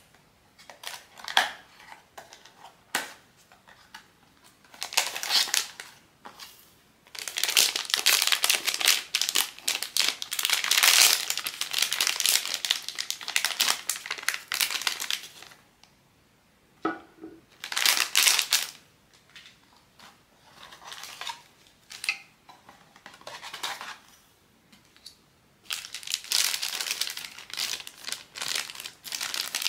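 Blind-box packaging handled and opened by hand: plastic wrapping crinkling and crunching in spells, with a few sharp clicks near the start and the longest, loudest crinkling in the middle.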